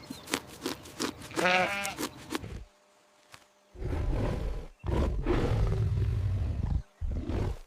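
Recorded animal calls: a short wavering bleat about one and a half seconds in, then after a brief pause a loud, low, rough growl lasting about three seconds, broken once in the middle.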